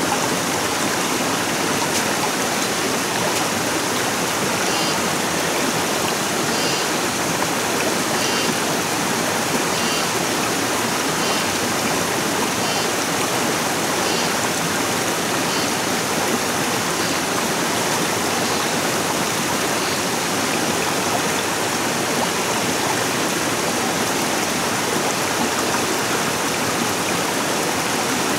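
Stream water rushing steadily, a constant even hiss of flowing water.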